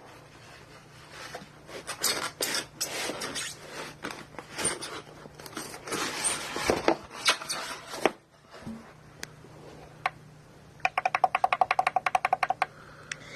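Scraping, rubbing and clicking as a boxed battery backup unit and its packaging are handled. Near the end comes a brief, fast, even rattling buzz.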